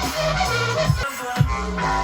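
Electronic dance track playing, with an old-school dubstep sound: a heavy bass line and kick drum, the bass dropping out briefly about a second in.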